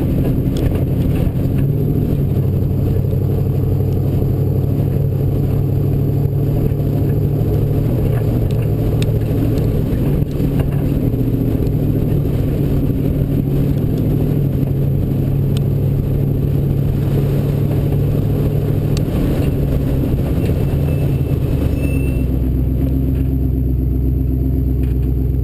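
Off-road race vehicle's engine running steadily under load, its note shifting up and down, with light rattles. The note drops lower and deeper about three-quarters of the way through.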